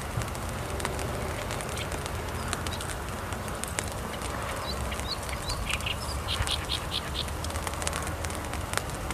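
Steady rain falling, with sharp drop ticks through it. In the middle a small bird gives a few short rising chirps, then a quick run of about six notes.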